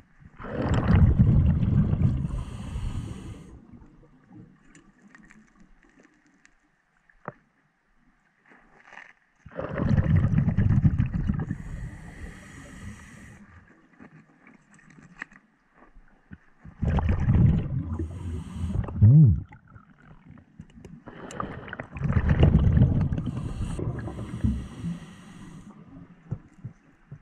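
Scuba diver breathing underwater through a regulator: four exhalations several seconds apart, each a gush of bubbles that fades out, with quiet between breaths.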